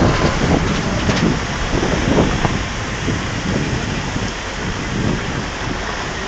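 Wind and road noise from a vehicle driving on a gravel road: a steady rushing hiss with low rumbling gusts, strongest in the first couple of seconds.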